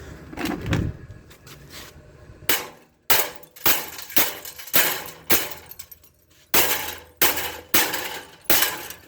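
Brittle, aged plastic box fan grill struck about a dozen times with an adjustable wrench, each hit a sharp crack as the plastic snaps and shatters.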